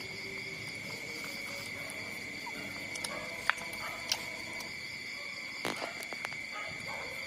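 Steady high-pitched drone of insects, with a few brief sharp clicks and squeaks about halfway through and again near the end.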